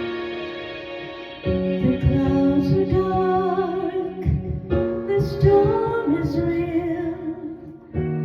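Background music: a slow, gentle song with sustained chords and a female voice singing a wavering melody that enters about two seconds in.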